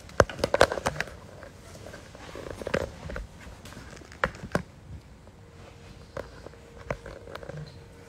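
Handling noise as a smartphone is held and moved against the recording phone: a quick cluster of sharp clicks and knocks in the first second, then single taps every second or so.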